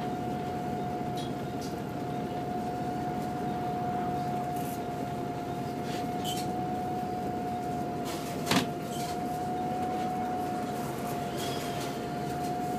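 Volvo B7TL double-decker bus at a standstill, heard from the lower saloon: its rear-mounted six-cylinder diesel idles as a steady rumble, with a thin, unchanging whine above it. A single sharp knock comes about eight and a half seconds in.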